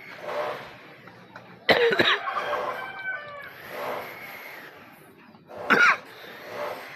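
A person coughing: a harsh burst just under two seconds in and another near six seconds. Between them come a few faint, short falling chirps.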